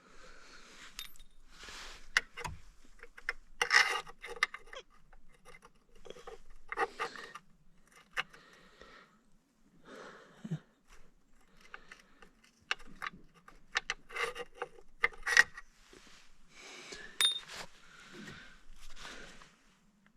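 Metal parts being handled: irregular clinks, jangles and scrapes in bursts, with a few sharp metallic clicks.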